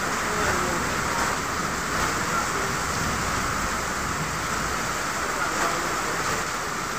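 Very heavy rain pouring down onto flooded ground and standing water, a steady, unbroken downpour.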